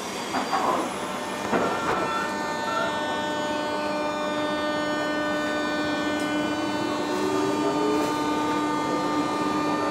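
JR 201 series electric train standing at the platform, with a couple of knocks in the first two seconds. A steady electrical hum of several tones sets in about a second and a half in, and over the second half one of those tones slowly rises in pitch.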